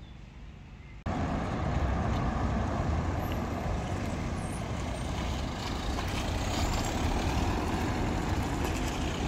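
Wind buffeting the microphone of a camera moving on a bicycle: a loud, steady low rumble that starts suddenly about a second in, after a short stretch of quieter outdoor ambience.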